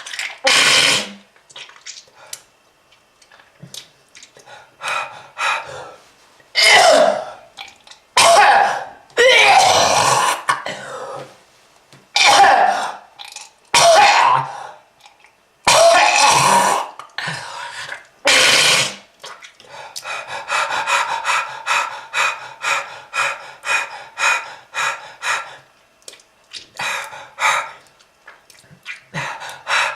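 A smoker coughing hard in deep, raspy hacking fits, with pauses between them. About two-thirds of the way through, it turns into a quick run of short, wheezy hacks at about two a second.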